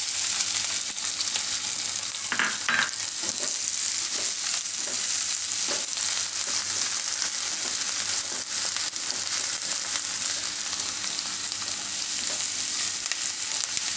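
Chopped onions and green chillies sizzling in hot oil in a nonstick kadhai, stirred with a spatula, with a few short knocks of the spatula against the pan.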